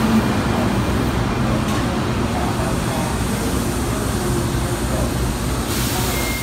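New Jersey Transit Arrow III electric multiple-unit train rolling slowly alongside the platform as it comes to a stop, with a steady rumble of wheels and running gear. A burst of air hiss sounds near the end.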